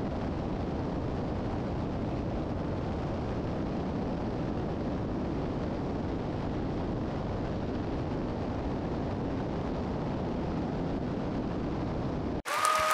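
Steady cabin noise of a 1981 Piper Seneca III twin-engine airplane with its engines running, an even rumble without clear tones. It cuts off abruptly near the end.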